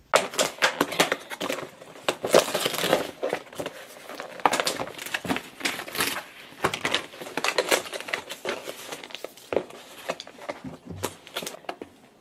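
Sandwich wrapping crinkling and rustling in dense, irregular crackles as takeout sandwiches are handled and unwrapped.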